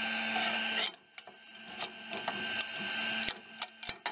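Metal scraper scraping and clicking against a 3D printer's build plate as a finished print is pried off, with a few sharp clicks near the end. A steady machine hum fills the first second, then drops away abruptly.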